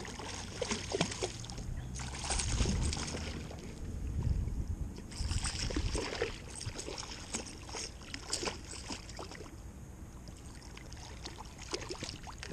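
Hooked bass thrashing and splashing at the water's surface in repeated bursts as it is reeled in, with the baitcasting reel cranking.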